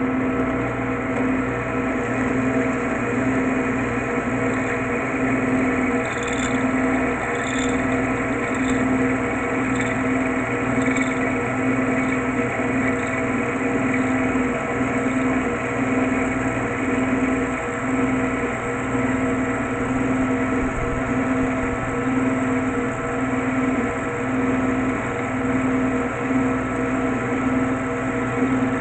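Drilling machine's motor running steadily while holes are drilled in a scrap part, with a few faint high ticks about six to eleven seconds in.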